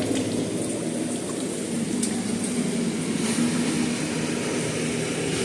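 Walk-in cooler evaporator fans running with a steady whir and hum, the unit's coil iced up, with a couple of faint ticks.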